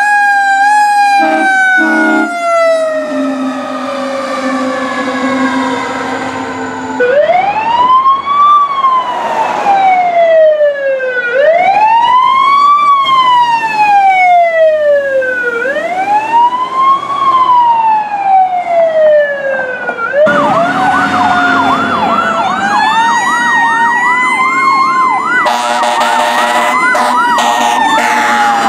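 Emergency vehicle sirens in three passes. First a siren tone slides slowly down in pitch as it winds down. Then an electronic wail rises and falls about every four seconds, and finally a fast yelp runs over a slower rising-and-falling siren, with horn blasts near the end.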